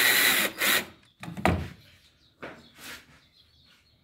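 Cordless 12 V drill-driver backing a screw partly out of a wooden block, running steadily and stopping about half a second in, with one short final burst. A sharp knock follows about a second and a half in, then a few fainter knocks.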